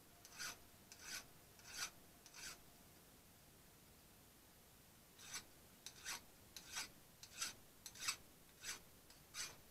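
Hand file rasping across the steel of a homemade lathe chuck key: four strokes about two-thirds of a second apart, a pause of almost three seconds, then about ten quicker strokes.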